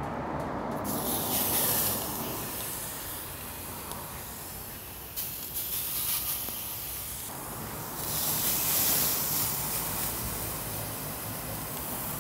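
Raw chicken breasts sizzling as they are laid on grill grates over burners on full heat, the sizzle swelling as each piece goes down: about a second in, just after five seconds and around eight seconds.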